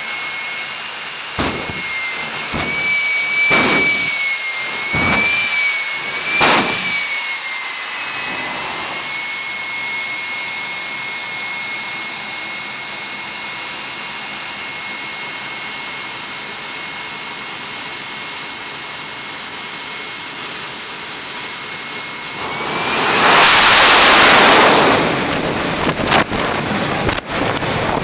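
Jet engine of the Bone Shaker jet semi truck running with a steady high whine, with several short loud blasts of throttle in the first seven seconds. About 23 seconds in the whine rises and a much louder rush of full power follows for about two seconds, then ragged buffeting on the microphone near the end.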